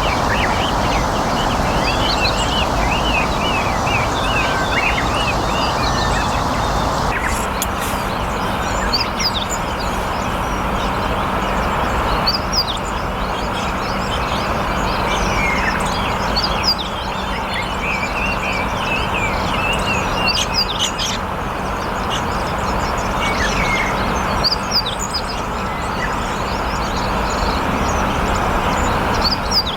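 Meadow bunting singing: several runs of quick, high notes a few seconds apart, over a steady rushing background noise. Before it comes in, other small birds chirp in rapid, repeated notes.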